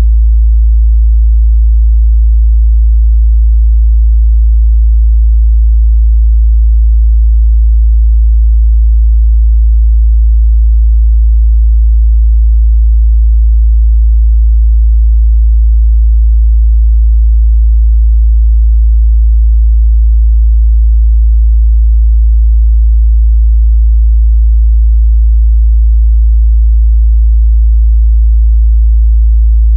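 A steady 55 Hz sine-wave test tone, a single deep, unchanging hum held at constant loudness.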